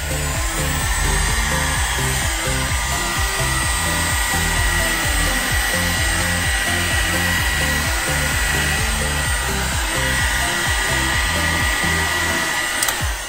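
Bosch GHG 18-60 heat gun running: the steady rush of its blower with a thin steady whine, stopping near the end.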